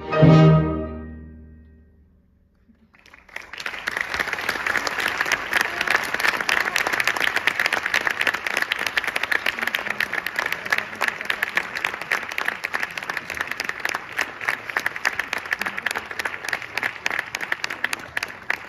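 An orchestra with piano sounds a final chord that rings out and dies away. After a moment of hush, audience applause starts about three seconds in and goes on steadily.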